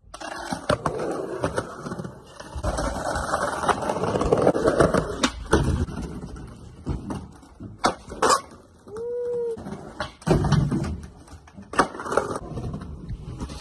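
Skateboard wheels rolling over concrete and brick paving, broken by several sharp clacks as the board hits the ground.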